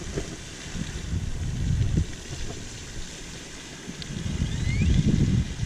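Wind gusting against the microphone, rumbling unevenly and swelling near the end, over a steady outdoor hiss. A faint high chirp rises briefly about four and a half seconds in.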